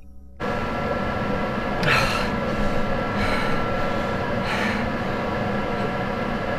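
A loud, steady rumbling noise with a few held tones cuts in suddenly about half a second in. Whooshes that fall in pitch sweep through it about every second and a half.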